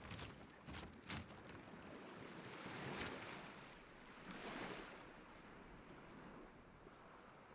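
Small waves faintly washing on a stony shore, swelling twice, with a few soft knocks about a second in.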